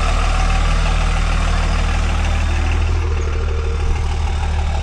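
Dodge Ram pickup truck's engine running steadily at low revs while the truck crawls slowly over slickrock. It is a low, even engine note with no revving.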